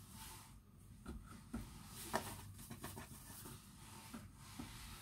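Hands rolling and setting down balls of bread dough on a floured wooden board: faint rubbing with a few soft taps.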